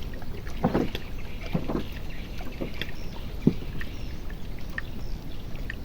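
Small boat on the river: a steady low rumble with scattered light knocks, one sharper knock about halfway through.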